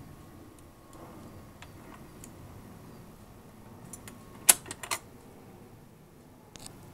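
A General Electric portable automatic record player's changer mechanism cycling at the end of a record, with the tonearm returning to its rest. There is a low mechanical running noise with light clicks, then two sharp clicks about halfway through and a fainter click near the end.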